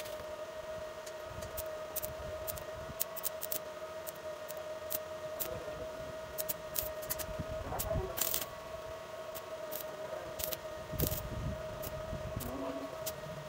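Lakoni arc welding machine humming with a steady whine, while the electrode holder and its cables are handled, making scattered sharp clicks and small clatters. There is a short scraping rush about eight seconds in and a low rumble about eleven seconds in.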